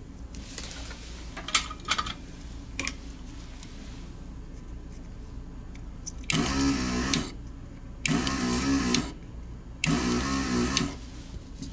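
Small vacuum pump of an electric desoldering gun running in three bursts of about a second each, sucking solder from the pins of the mouse's old click switches to free them from the board. A few light clicks come before the bursts.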